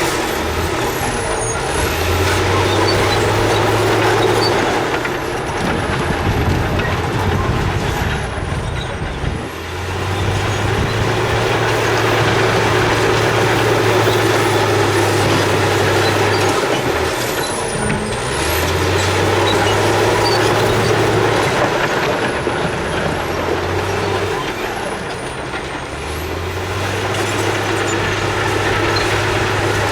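Heavy diesel earthmoving machinery (bulldozer and dump trucks) running steadily at work, with a low drone that comes and goes several times.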